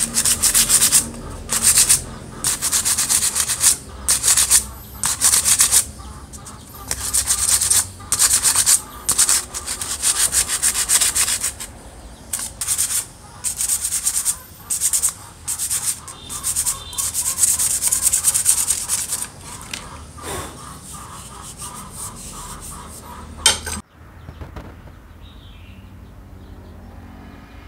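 Sandpaper rubbed by hand back and forth over a wooden knife handle: a long run of scratchy strokes, one to two a second, that stop about two-thirds of the way through. A brief sharp sound follows near the end, then only a faint steady hiss.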